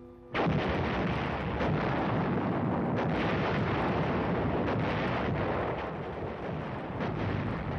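105 mm howitzer opening fire: a sudden blast about a third of a second in, then a continuous rumble of artillery fire with further sharp shots every second or two.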